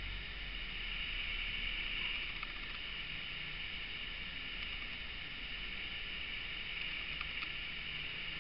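Steady hiss with a faint low hum underneath: the background noise of the recording, with no speech.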